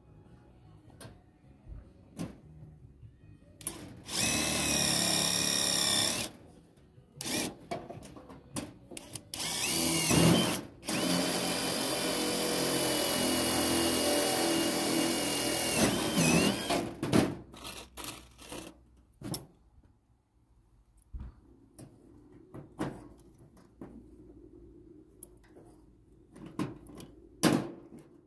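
Power drill running in two bursts: a short run of about two and a half seconds about four seconds in, then a longer run of about six seconds starting near ten seconds, its whine steady until it winds down. Scattered clicks and knocks fall between and after the runs.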